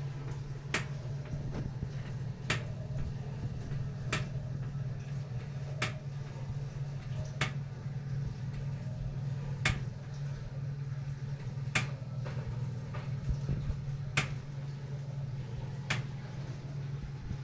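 Steady low hum of an electric oven's fan, with a sharp click about every two seconds.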